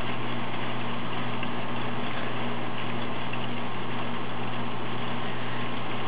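Steady rain hissing without a break, with a steady low hum underneath.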